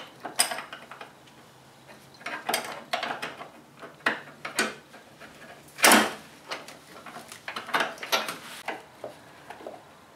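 A flare nut wrench clinking and knocking against the brake line nut on a master cylinder as the line is worked loose: a run of irregular metallic clicks, the loudest about six seconds in.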